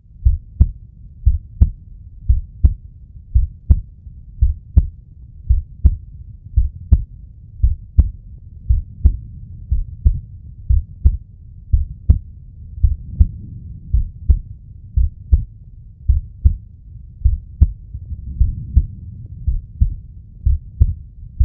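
Heartbeat sound effect: steady low double thumps, lub-dub, about one beat a second, over a faint low hum.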